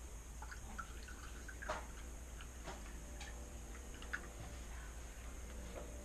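Water being scooped out by hand into a plastic bucket: a few small, scattered splashes and drips.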